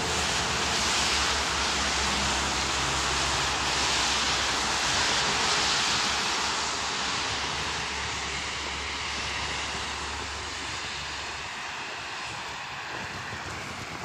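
Road traffic: a steady rush of passing vehicles over a low engine rumble, slowly fading away; the rumble dies out about eleven seconds in.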